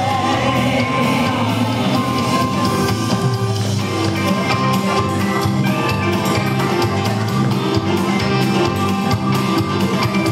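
Country line-dance music played over loudspeakers: a steady drum-kit beat with guitar and some singing.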